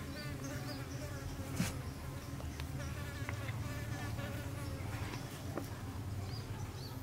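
A steady insect buzz, wavering in pitch. A few soft clicks and crackles come from a wet banana leaf being folded by hand, the sharpest about one and a half seconds in.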